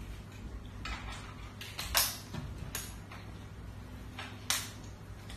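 A few light, scattered knocks and scuffs, the sharpest about two seconds in, over a steady low hum of room tone.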